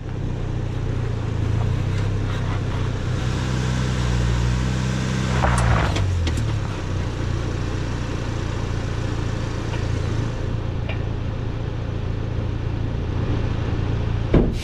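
A Ford Bronco's engine running while the truck stands still, its note falling about five to six seconds in, with a few knocks around then, and then holding a steady low rumble.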